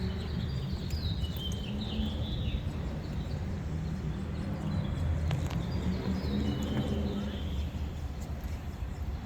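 Birds chirping in short phrases that step down in pitch, over a steady low outdoor rumble, with one sharp click about five seconds in.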